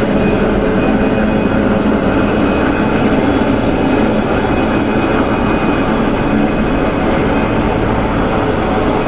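Helicopter running steadily during a heavy lift, a loud continuous drone with several steady tones.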